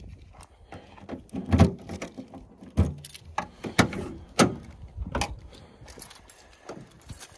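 Irregular clicks and knocks of objects being handled, with half a dozen sharper knocks over the first five seconds or so.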